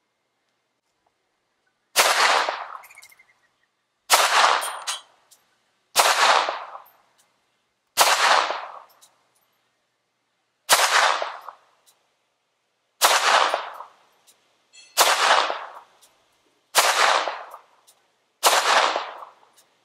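A pistol fired nine times in slow, aimed fire, roughly one shot every two seconds. Each sharp crack trails off over about a second.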